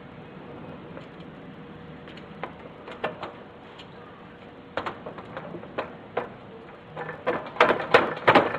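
Clicks and knocks of parts being fitted into a Tremec TKO 600 manual transmission, scattered at first and coming faster and louder near the end.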